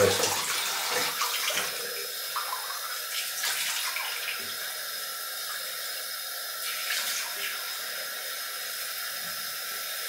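Cold tap running steadily into a sink, with a few splashes as water is scooped up to rinse a freshly shaved head.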